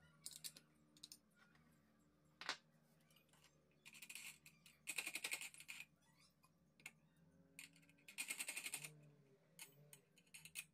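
Handling noise of a circular saw blade on a plywood sharpening jig: scattered small metal clicks and knocks, one sharper knock a couple of seconds in, and two bursts of rapid clicking lasting a second or two each.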